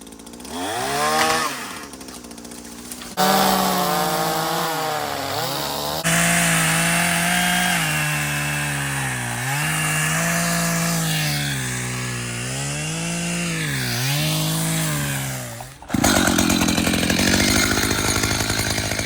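Two-stroke chainsaw at high revs cutting wood. The engine pitch drops again and again as the chain bites into the wood and picks back up as it frees.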